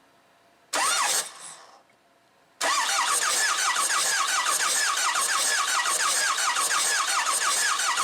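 Ford 6.0 Powerstroke V8 diesel cranked on its starter: a brief bump about a second in, then steady cranking with a whine that rises and falls in a fast, even rhythm. It is cranked for a compression test on cylinder 5, which reads only about 150 psi against about 400 on the others.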